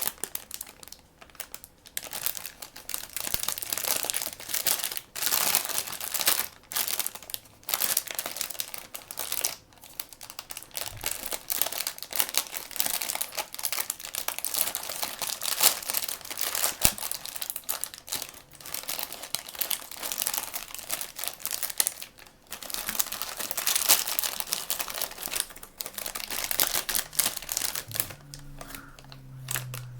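Plastic blind-bag and blind-box packaging being crinkled and torn open by hand, in irregular bursts with short pauses between them.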